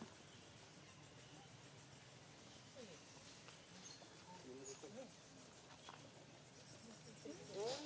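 A steady, high-pitched insect chorus trilling in fast pulses, with a few faint short calls over it, the loudest near the end.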